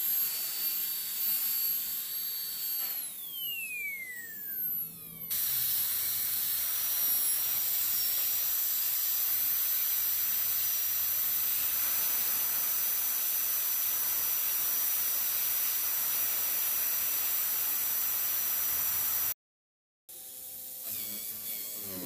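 High-speed dental handpiece whining at a steady high pitch, then spinning down in a falling whine about three seconds in, as the composite repair on the tooth is shaped. After a cut, it runs again as a steady hiss with a thin high whine, stopping abruptly; near the end, after a short gap, a lower buzz of a polishing disc spinning on the tooth begins.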